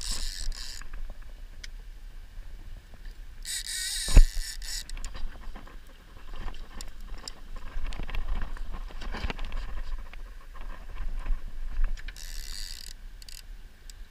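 Multiplier fishing reel buzzing in three short bursts as line is pulled off against the drag under a heavily bent rod: one at the start, one about 4 s in, one near the end. A knock about 4 s in, over a low rumble of wind and handling on the microphone.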